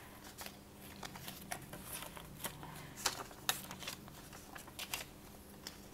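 Crisp new Indian ₹500 paper banknotes rustling and flicking as they are counted by hand, an irregular run of soft snaps and crinkles.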